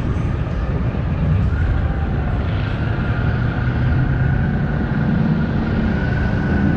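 A car driving along the street at a steady speed: low engine rumble and road noise. A thin whine comes in about a second and a half in and rises slightly in pitch.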